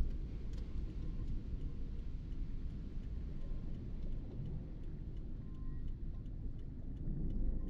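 A car driving on a wet road, heard as a steady low rumble from the car in motion. A faint, even ticking runs over it through most of the stretch.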